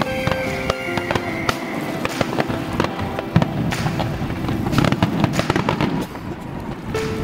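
Aerial fireworks shells bursting in quick succession, with repeated bangs and crackling, over music with held notes. The bangs ease briefly about six seconds in.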